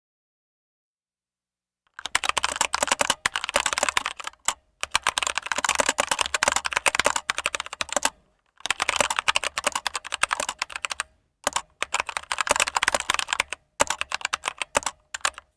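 Stock full-profile Keychron K2 mechanical keyboard being typed on quickly. After about two seconds of silence, the key clatter comes in runs with brief pauses between them.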